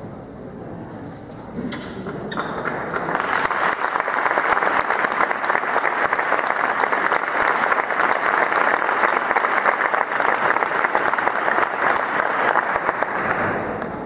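Audience applauding. The clapping starts about two seconds in, swells to a full, steady round and dies away near the end.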